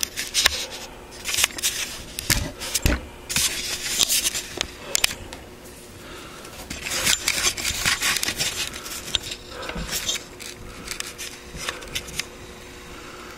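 Handling noise as the camera and the multimeter leads are moved about the mower: irregular rubbing and scraping with scattered clicks and knocks.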